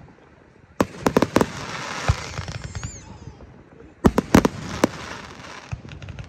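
Aerial fireworks bursting: a quick cluster of sharp bangs about a second in, and another cluster about four seconds in.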